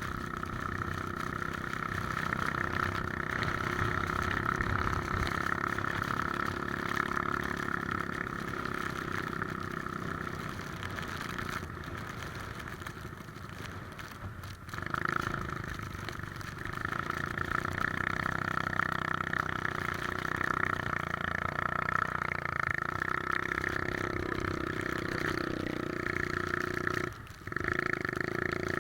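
Three-wheeler ATV engine running steadily under way, with two brief sudden drops in level, about halfway through and near the end.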